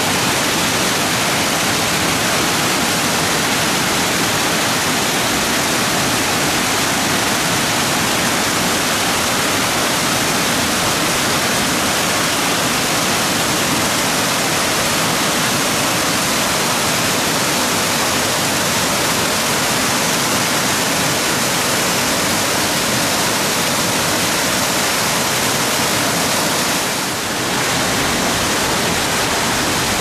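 Waterfall and cascading stream: a loud, steady rush of falling water, dipping briefly near the end.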